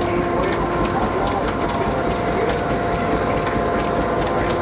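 Over-100-year-old cotton gin running empty: a steady mechanical whir with a constant hum, and a rough clatter of sharp clicks about two or three times a second.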